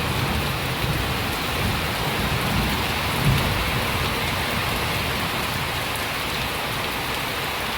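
Heavy rain pouring down steadily in a summer downpour.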